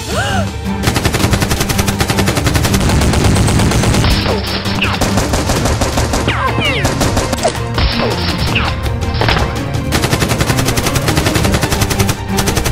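Rapid automatic-gunfire sound effects, long fast bursts of shots, dubbed over toy foam-dart blasters, with a few short falling whistle-like sweeps among them.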